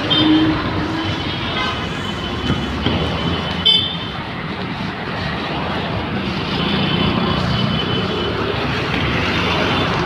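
Dense street traffic, with a bus, auto-rickshaws and motorbikes running past close by. Horns honk briefly several times: near the start, a sharp one about four seconds in, and again a few seconds later.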